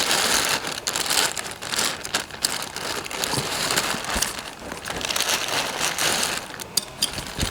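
Packaging crinkling and rustling as it is handled and pulled away from a new transaxle, with many small irregular crackles.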